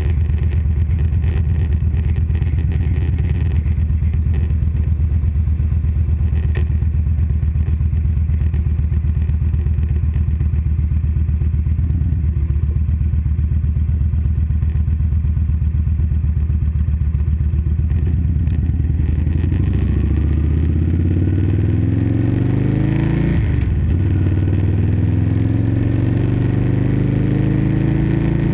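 2012 Victory Vegas 8-Ball's V-twin engine idling steadily at a stop sign. About two-thirds of the way in it pulls away and the engine note rises as the bike accelerates, dips briefly at an upshift, then rises again.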